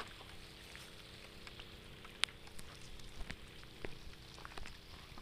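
Scattered faint ticks and light rustles, with one sharper click a little over two seconds in.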